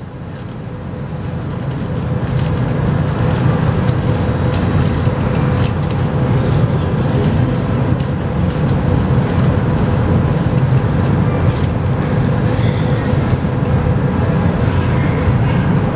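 Las Vegas Monorail car standing at a station platform: a steady low hum and whir of its onboard equipment, swelling over the first couple of seconds and then holding level, with a faint steady tone over it.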